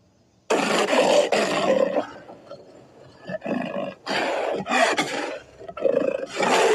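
Custom giant-monster roar sound effect for a giant robot character: after a brief silence, a loud roar sets in about half a second in, followed later by several shorter roars in quick succession.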